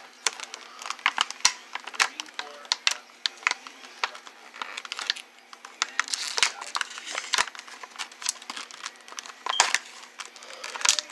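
Clear plastic packaging crinkling and clicking as a pocket knife cuts an action figure free of its tray: an irregular run of sharp clicks and crackles.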